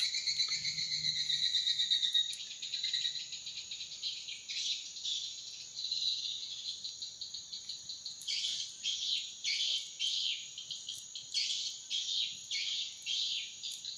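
Insects chirping in a high-pitched trill that is steady at first, then turns into fast pulsing and, from about eight seconds in, short repeated bursts.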